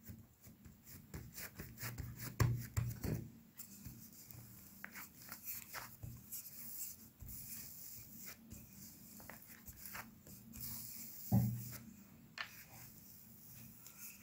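Hands pressing and a wooden rolling pin rolling out layered, buttered dough on a silicone pastry mat: soft rubbing and scraping with light taps, and two dull thumps, the louder one about eleven seconds in.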